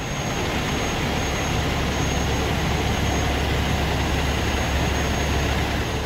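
Heavy engines running: a steady low rumble under a wide wash of noise.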